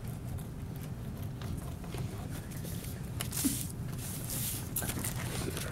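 Paper and card being handled on a tabletop: light rustles, scrapes and a few small clicks, busiest a little past halfway, over a low steady room hum.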